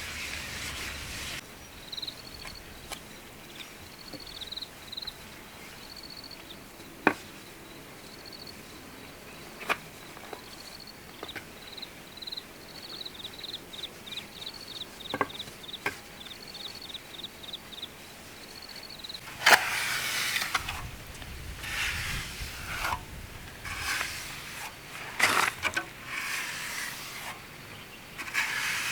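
An insect chirping in short, high-pitched bursts, some coming in quick trains, with a few sharp knocks between them. From about two-thirds of the way in, rustling and scraping handling noises take over.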